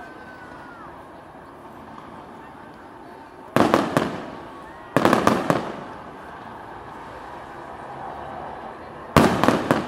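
Aerial fireworks bursting in three quick volleys of bangs, each a rapid run of cracks that echoes away. Crowd voices murmur between the volleys.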